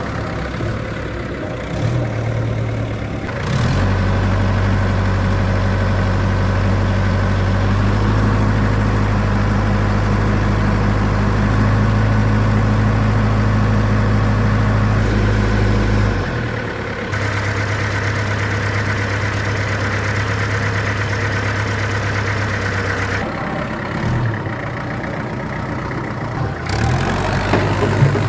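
Vintage truck's engine running steadily with a low hum, its sound shifting abruptly a few times.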